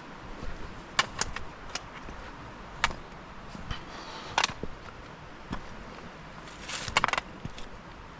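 Footsteps of a hiker crossing frozen off-trail ground: irregular crunches and sharp snaps, with a quick cluster of them about seven seconds in.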